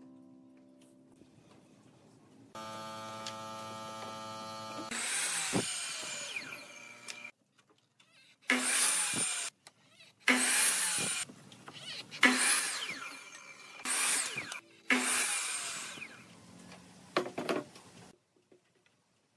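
Electric miter saw: the motor runs with a steady whine, then makes a series of about five short, loud cuts through a thin wooden strip, each burst of blade noise rising and dying away as the cut ends.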